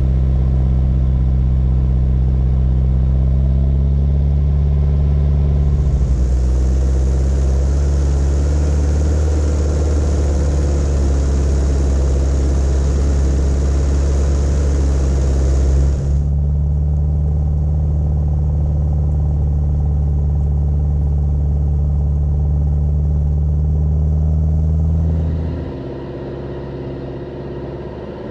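A 1999 Jeep Cherokee XJ's 2.5-litre turbo-diesel four-cylinder engine pulls steadily under load through deep snow, loud and close. For several seconds in the middle, a hiss of the tyre churning and throwing snow rides over it. Near the end the engine sound drops to a quieter hum.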